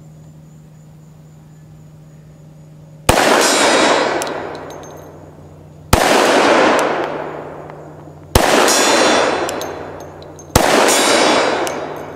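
Four shots from a Glock 20 10mm pistol, a little over two seconds apart, the first about three seconds in, each followed by a long rolling echo and a brief metallic ring from the steel bison target being hit.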